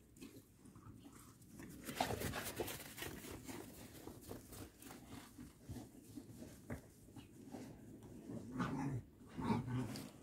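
Ten-week-old Boxer-Malinois mix puppies playing with a larger dog: dog sounds over a run of quick scuffs and taps. The sound grows louder about two seconds in and peaks again near the end.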